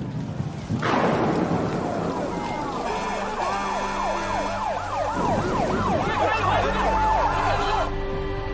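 Several emergency-vehicle sirens sounding together, their pitch rising and falling over and over, after a sudden loud burst of noise about a second in.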